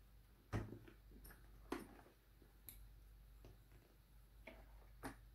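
A few faint, sharp clicks and taps from handling the helmet intercom earpiece as it is fitted inside the helmet, the loudest about half a second in.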